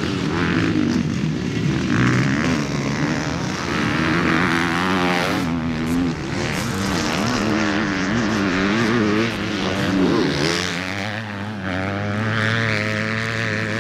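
Several motocross dirt bikes' engines running on the track at once, their pitch rising and falling steadily as the riders work the throttle through the practice laps.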